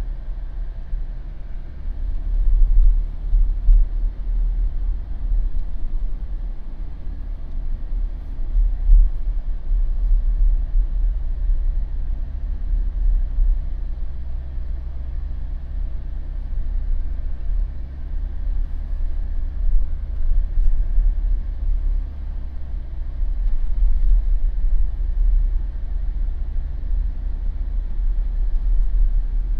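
Jeep driving slowly along a residential street: a steady low rumble of engine and tyre noise.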